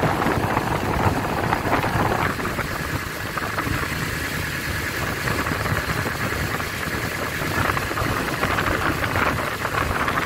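Steady engine and road noise of a vehicle driving along, heard from the vehicle itself.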